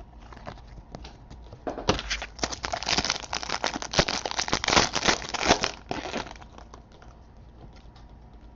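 Foil trading-card pack wrapper being torn open and crinkled, with a dense run of crackles from about two seconds in until about six seconds in, then quieter handling.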